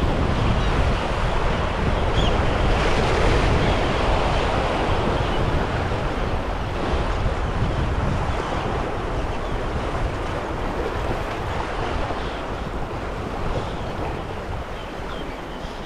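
Choppy sea surf washing against the shore, with wind buffeting the microphone; a steady rushing that eases a little toward the end.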